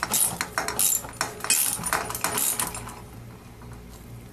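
Socket ratchet clicking in quick bursts as the left crank-arm bolt is tightened onto a square-taper crank. The clicking stops a little over halfway through.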